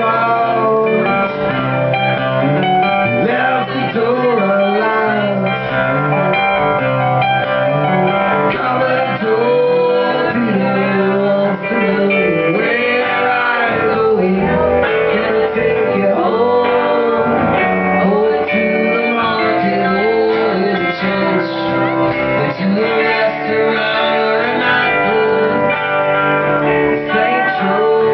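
A rock band playing live in an instrumental section of a song, guitar to the fore, with notes bending up and down over a steady bass and chords.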